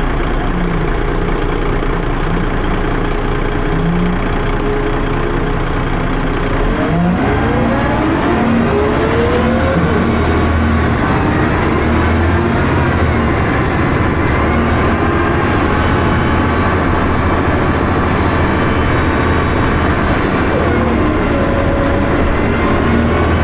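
Dennis Arrow double-decker bus engine running at low revs, then about seven seconds in pulling away, with rising whines as it picks up speed, then running on steadily.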